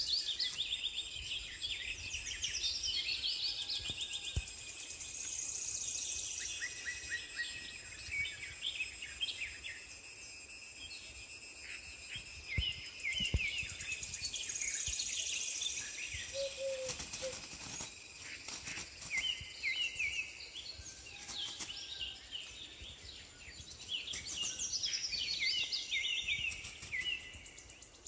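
Birds chirping and calling over and over in many short notes, over a steady high-pitched insect whine.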